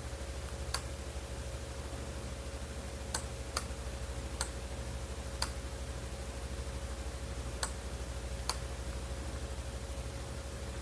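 Seven scattered single clicks as a laptop's pointer is clicked and dragged to rotate an image on screen, over a steady low hum.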